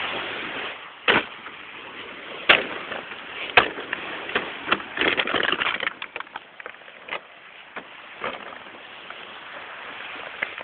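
Empty plastic bottle knocked and crackled by a husky playing with it: three sharp knocks in the first four seconds and a burst of crackling around the middle, over a steady hiss.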